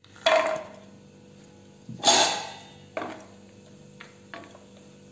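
Spatulas knocking and scraping in a nonstick frying pan as cashew nuts are tipped into ghee and stirred: three sharp knocks, the loudest about two seconds in, then a few fainter taps.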